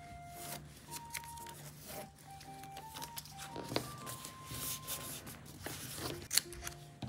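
Soft background music of gentle, single held notes at changing pitches, with scattered light clicks and rustles of paper and stickers being handled.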